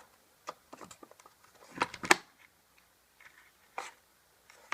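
Homemade puzzle box being worked by hand: a string of small clicks and knocks as its pieces are moved, with the loudest pair of knocks about two seconds in.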